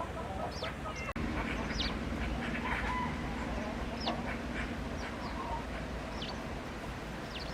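Chickens clucking, with many short, high, falling chirps scattered among the clucks. A faint steady low hum runs underneath after a brief dropout about a second in.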